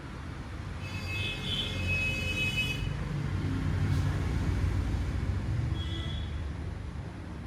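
Road traffic passing close by: a vehicle's low engine rumble swells and fades. A high steady tone sounds for about two seconds starting a second in and briefly again near the end, with a single click about four seconds in.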